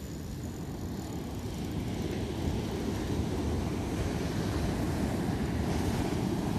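Wind buffeting the microphone with a steady low rumble, over the wash of surf breaking on the beach.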